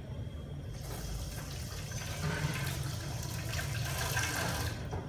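Water running or splashing for about four seconds, starting and stopping abruptly, over a steady low hum.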